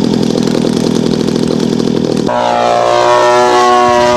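Radio-controlled scale model aircraft engines: first one running with a rapid, even firing beat, then, after an abrupt cut a little past two seconds in, another running at high speed with a steady, high-pitched tone that dips slightly in pitch before holding.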